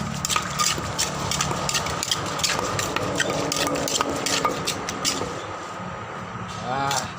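Pestle pounding in a mortar to make seafood papaya salad: quick, irregular knocks, a few a second, thinning out near the end.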